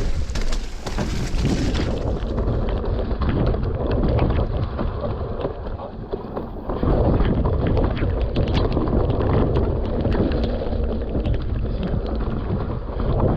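Wind buffeting the microphone as a mountain bike runs down a rough, wet trail, with frequent clicks and rattles from the bike over rocks and roots. The sound turns muffled about two seconds in.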